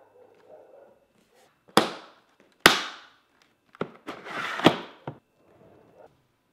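Pelican 1510 hard plastic case being shut: four sharp plastic clacks about a second apart as the lid comes down and the latches snap closed, with some rustling handling around the last one.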